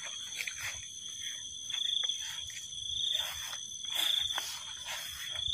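Insects trilling: a steady high-pitched trill that swells about once a second, with scattered soft rustles.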